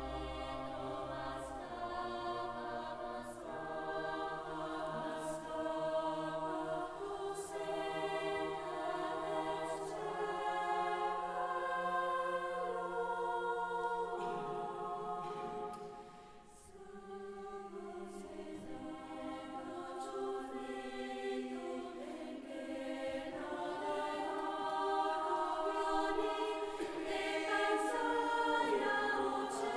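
Women's choir singing a cappella in several parts, holding long chords; the sound drops briefly at a phrase break about halfway through, then swells toward the end.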